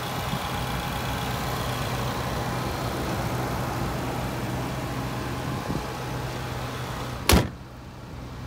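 Range Rover Sport engine idling steadily and super quiet under the open hood. About seven seconds in, the hood is slammed shut with one loud bang, and after that the idle sounds muffled.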